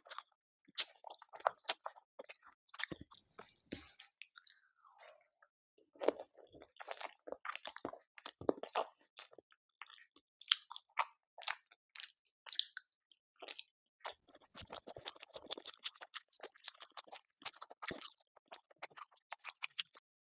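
A person chewing a mouthful of an Indian chicken curry meal close to the microphone, with irregular wet mouth clicks and smacks. It goes quieter for a moment about four seconds in.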